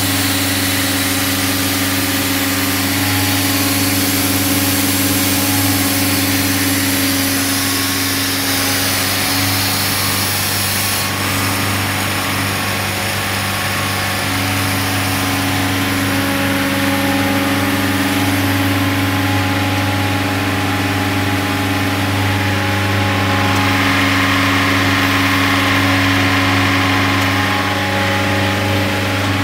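Self-generating nitrogen servicing cart running steadily as it warms up after start-up: an engine-driven compressor unit, with a constant low engine hum and a hiss above it.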